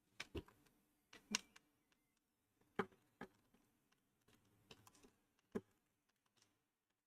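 Faint, irregular clicks and taps of a repair tool working at the stuck power-supply cover inside an Apple TV 3rd gen, about seven sharp ones spread over several seconds.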